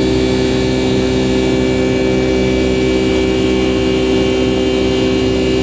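Steady drone of a Boeing 757-200's twin turbofan engines during climb-out, heard inside the passenger cabin from a seat over the wing. A loud, even rush carries several steady humming tones at an unchanging level.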